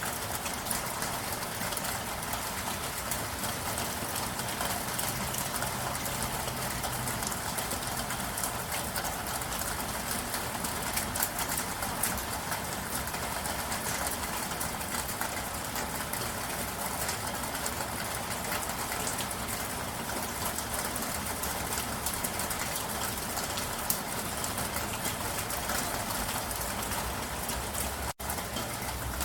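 Steady rain falling, a dense, even patter of drops, with a momentary break in the sound near the end.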